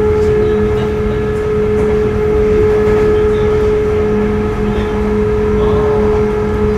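Running sound of a Sotetsu 8000 series electric train with Hitachi GTO-VVVF control, heard from inside the car: a steady rumble of wheels on track with a hum that holds one pitch.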